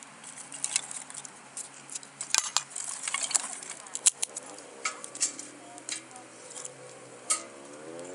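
Metal utensils and cookware clinking and scraping in a run of sharp, irregular clicks over a faint steady hiss.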